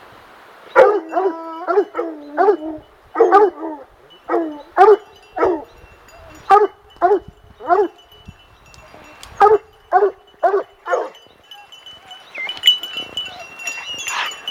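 Plott hounds barking in a long string of loud, pitched bawls, about one or two a second, with a faint steady high ringing tone behind them.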